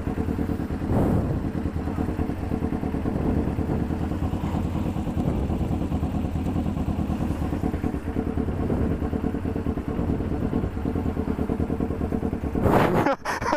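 Kawasaki 250cc parallel-twin motorcycle engine running at a steady speed while riding, heard from a helmet-mounted camera, with some wind noise. A brief loud noise comes near the end.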